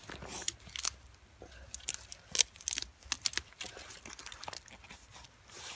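Boots crunching in frozen snow: a run of irregular, crisp crunches, the sharpest about two and a half seconds in.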